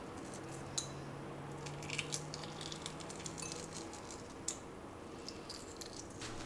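Light clinks and taps of cutlery and dishes being handled, scattered small clicks over a steady low hum that stops a little under four seconds in.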